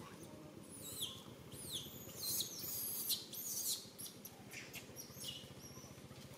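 A quick series of shrill, high-pitched chirping calls, each one falling in pitch. They come thickest and loudest in the middle, then thin out.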